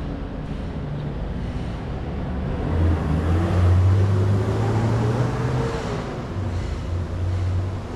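A motor vehicle's engine running nearby, swelling up about three seconds in and easing off around six seconds, over a steady outdoor noise.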